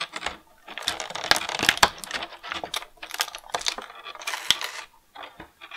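Crinkling and rustling of a thin clear plastic bag being handled and opened, with sharp little clicks and crackles throughout.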